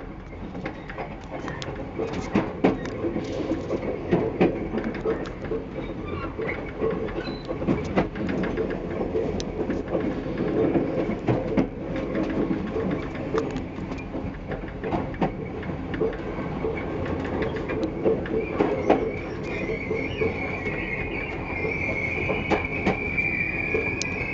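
Passenger train running over station points and rail joints, heard from the last car: a steady rumble broken by irregular wheel clicks and knocks. Near the end a high squeal from the wheels sets in as the train slows for the platform.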